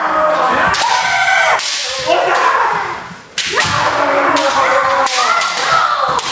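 Kendo sparring: bamboo shinai cracking against armour and each other, with stamping footwork on a wooden floor, amid loud overlapping kiai shouts from several practitioners. There are about five sharp strikes, each followed by shouting.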